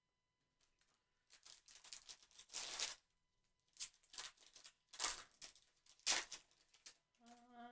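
Foil wrapper of a football trading-card pack being torn open and crinkled by hand: a long rustling tear about a second in, then several shorter crinkling bursts.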